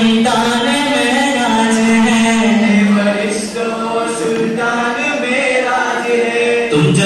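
A teenage boy singing into a microphone over a hall's sound system, a slow melody with long held notes.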